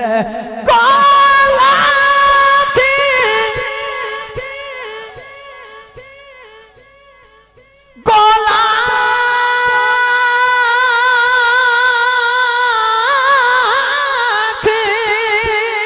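A man singing an Urdu naat over a microphone, holding long wordless notes. The first note fades away over several seconds, and a second long note starts about eight seconds in and wavers near the end.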